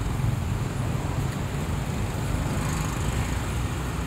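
Motorbike traffic on a busy street: engines running close by with a steady low hum over road noise.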